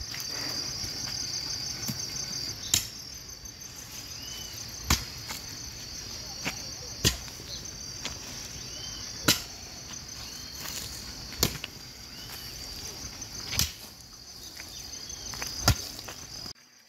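A hoe chopping into garden soil, one sharp strike about every two seconds, seven in all, over the steady high chirring of crickets.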